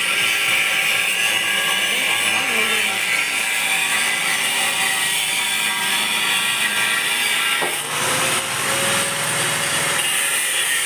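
Milling machine cutting a metal workpiece: a steady machining noise with a strong whine, briefly interrupted about eight seconds in.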